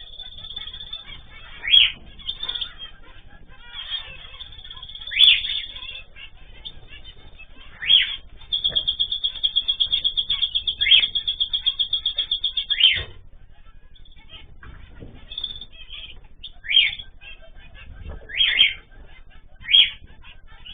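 Caged pet birds calling: loud, sharp, high calls every couple of seconds, and a rapid run of repeated notes lasting about four seconds in the middle.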